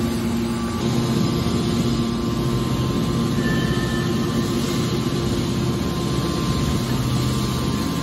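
Hydraulic power unit of a scrap-metal car baler running, its electric motor and hydraulic pump making a steady hum while the press lid is driven closed.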